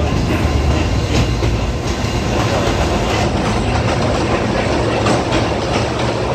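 Kurobe Gorge Railway trolley train rolling along, heard from inside a passenger car: a steady rumble from the running gear, with now and then a clack from the wheels.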